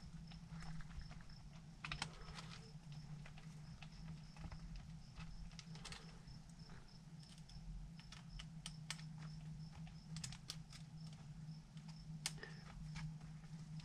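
Small irregular clicks and taps of a screwdriver, screws and plastic parts being handled while working on an RC crawler's wheel hub. A faint high tick repeats steadily underneath, over a low hum.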